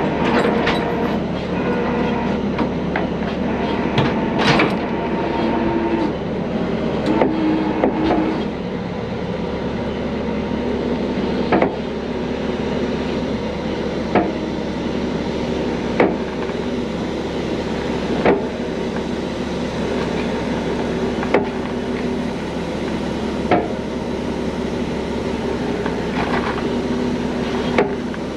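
Heavy diesel truck engine running steadily under load while a loaded semi-trailer is dragged out of a ditch. Sharp metallic clanks come irregularly at first, then about every two to three seconds for the rest of the time.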